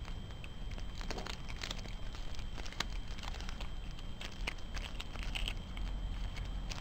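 Cairn terrier chewing and crunching raw chicken thighs on the bone: irregular wet crunches and clicks, some against the bowl, over a steady low rumble.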